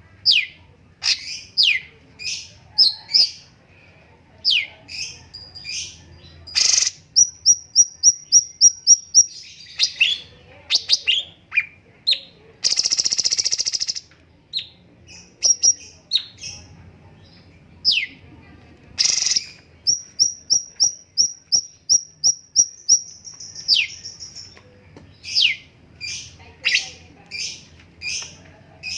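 Cucak cungkok singing: sharp down-slurred whistled notes, broken by two fast runs of short clipped notes and, about halfway through, a harsh, buzzy rattle.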